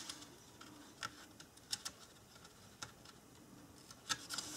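Small scissors snipping cardstock: about five faint, short clicks spaced irregularly, cutting free a die-cut paper frame where the die did not cut all the way through.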